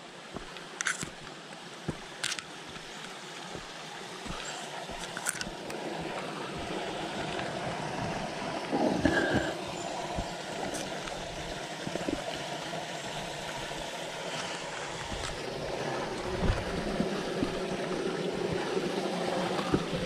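Small creek trickling and gurgling over rocks, growing louder through the first several seconds, with footsteps on dirt and rock and a few scrapes and knocks as rocks are stepped on.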